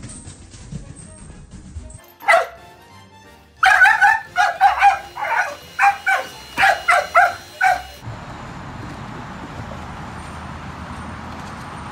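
Bernese mountain dog barking about a dozen times in quick succession at a handheld vacuum cleaner, after one short falling cry. Steady traffic noise follows near the end.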